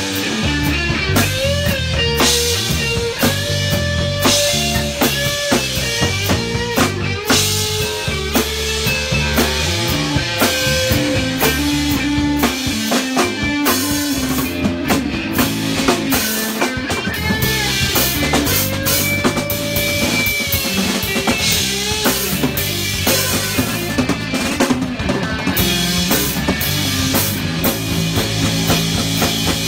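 Live rock band playing: a drum kit with snare and bass drum, under a bending electric guitar line.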